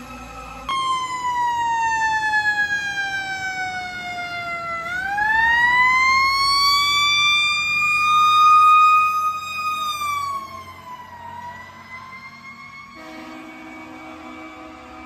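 Fire engine siren wailing: its pitch sinks slowly for several seconds, swings quickly back up, holds high, then drops again. Near the end it gives way to a fainter, steadier siren.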